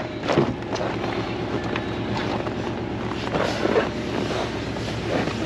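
Pickup truck engine idling while it warms up in deep cold, with wind on the microphone. A few short knocks and rustles as the driver's door is opened.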